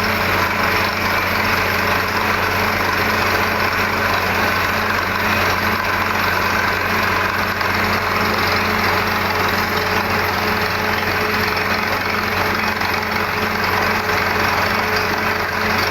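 Borewell drilling rig's engine running steadily under an even mechanical rumble and hiss of the drilling machinery, with no change in pace.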